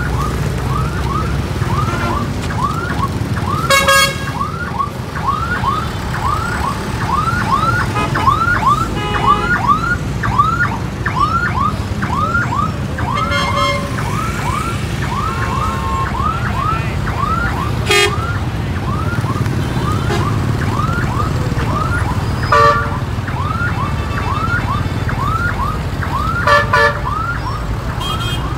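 An electronic siren-like alarm repeating short rising chirps about twice a second over the low rumble of heavy truck and motorbike traffic. Horns honk briefly several times.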